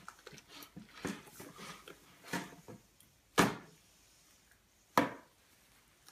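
Handling noise as a skinned rabbit carcass is worked over a plastic tub on a wooden table: a few short knocks and scuffs, the two loudest sharp knocks about three and a half and five seconds in.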